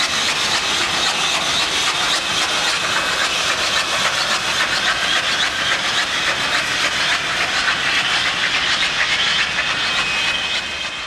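SNCF 141 R Mikado (2-8-2) steam locomotive moving off with its train: a steady loud hiss of steam over the rumble and clatter of the wheels on the rails.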